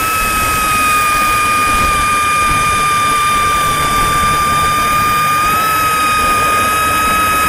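Power drill running steadily under load as its bit bores a hole into a centrifugal pump's wear ring, a steady whine.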